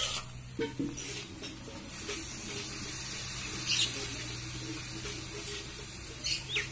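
Water poured from a steel bowl into a hot iron kadai of frying goat meat and potatoes, the pan giving off a steady hiss.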